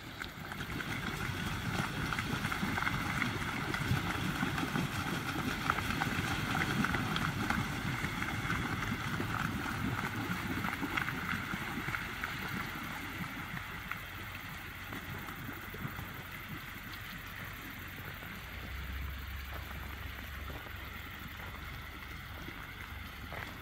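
Water splashing and churning as a flock of American white pelicans feeds together on crappie, the birds dipping and thrashing at the surface. The splashing is busiest in the first half and eases after about twelve seconds.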